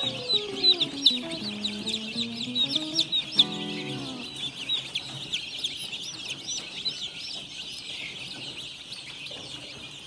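A brooder crowded with chicks peeping nonstop, a dense chorus of short, high cheeps that slide downward. Background music with falling melodic notes plays underneath for the first four seconds or so, then fades.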